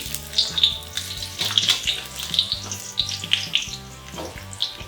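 Garlic frying in hot oil in a pan, sizzling with irregular crackles.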